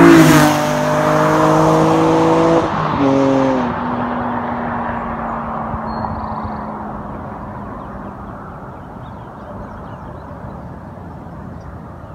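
BMW E46 M3's S54 straight-six, with a Supersprint header-to-muffler exhaust and CSL airbox, running at high revs as the car passes. It is loudest right at the start and its pitch drops as it goes by. About three seconds in the engine note breaks and changes, then the car fades steadily into the distance.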